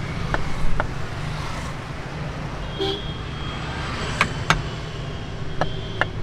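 Knife cutting through watermelon and knocking on a wooden cutting board: several sharp, short knocks, over a steady rumble of road traffic. A short beep sounds near the middle.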